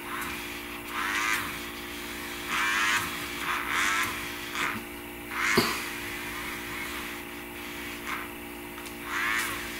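Small battery-powered electric eraser running with a steady whir, with short scratchy bursts each time its spinning tip is pressed and rubbed on the drawing paper, and a sharp tick about halfway.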